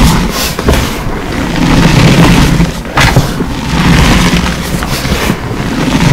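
Close-miked hands crushing and squeezing reformed gym chalk blocks in loose powder, a gritty, crunchy crumbling that comes in repeated swells with a few sharp cracks.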